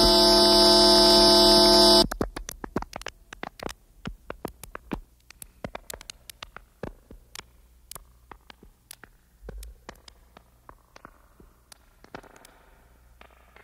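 1960s electronic tape music: a loud, dense chord of many steady tones with hiss above cuts off abruptly about two seconds in. Scattered sharp clicks follow, thinning out and growing fainter.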